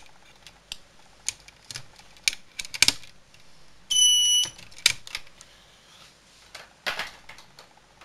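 Clicking and snapping of snap-together circuit-kit parts and alligator clips being handled, with the burglar-alarm circuit's horn giving one short, loud, high-pitched beep about four seconds in as the circuit is tested with a new capacitor.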